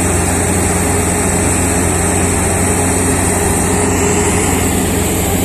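Diesel engine of an IMT rotary piling rig running steadily, a continuous low drone with no let-up.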